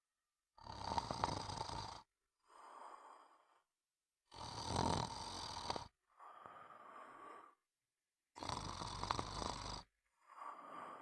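Snoring in a slow, even rhythm: three loud, deep snores about four seconds apart, each followed by a quieter, softer breath.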